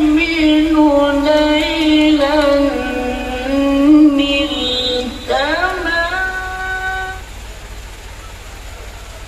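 A sung Arabic sholawat (Islamic devotional song). One voice holds long notes that waver and slide in pitch, with a steady low bass underneath. The singing ends about seven seconds in, leaving a steady hiss.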